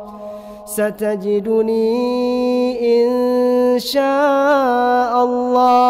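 A male Quran reciter chanting in melodic tajweed style. There is a short pause for breath at the start, then long held notes with ornamented turns.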